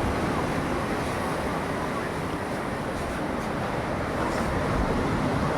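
Steady wash of ocean surf at a beach, with wind rumbling on the microphone.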